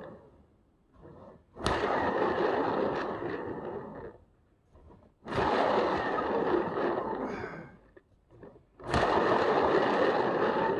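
Hand-spun plastic turntable whirring and rumbling as it turns with a wet-painted canvas on it. It is flicked into motion three times, each start a sharp knock followed by a noisy whir that fades over two to three seconds as it slows.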